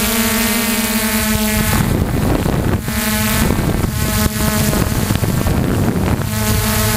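Electric RC helicopter running on a LiPo battery, heard from its onboard camera: a steady motor and rotor whine. From about two seconds in until about six seconds it turns into a rough, gusty rush of wind on the microphone, and then the steady whine comes back.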